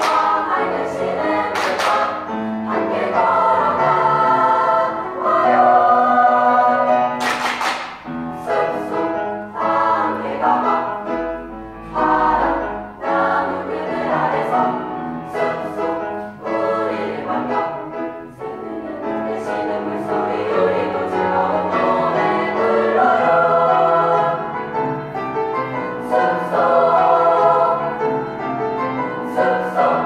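A girls' school choir singing a song in several parts, with a few crisp hissing consonants standing out.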